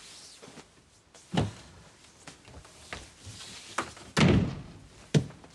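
A room door opening and shutting, with several sharp knocks and thuds, the loudest about four seconds in and another just before the end, over the rustle of a quilt being spread out.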